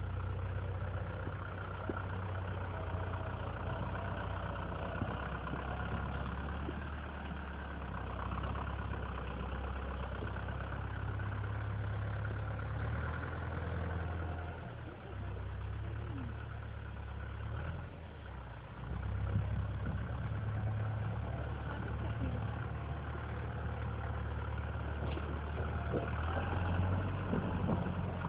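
Lamborghini Cross 70 tractor's diesel engine running steadily as it pushes snow with its front-loader blade, the engine note dipping briefly about halfway through.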